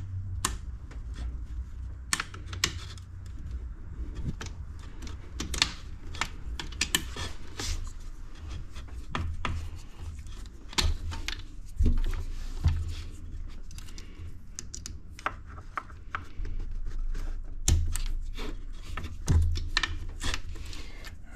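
Irregular clicks and light taps of hand tools on plastic and metal: a pick and an open-end wrench working the turbo blow-off valve's connector and fitting loose.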